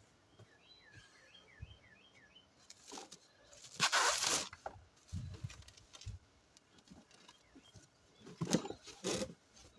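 A bird chirps a quick run of short falling notes. A loud rustle of handled packing comes about four seconds in, and a few knocks near the end.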